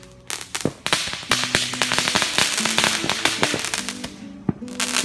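Fireworks crackling and popping in a dense run of rapid cracks, with a single sharper bang about half a second in and another near the end, over background music.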